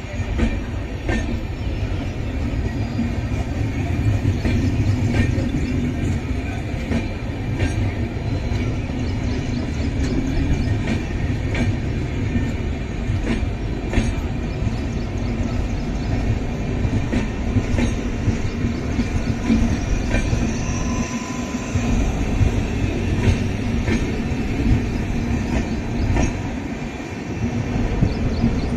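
LHB passenger coaches of an Indian train rolling past on the rails: a steady rumble of wheels on track, with a click-clack every second or two as wheelsets cross rail joints.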